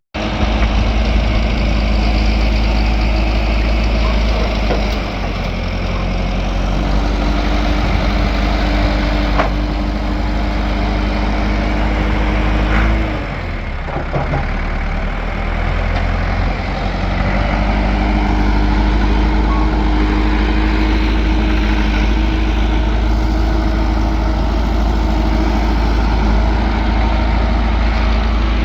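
An engine running steadily with a deep rumble; about halfway through its pitch drops and it eases off for a few seconds, then picks back up.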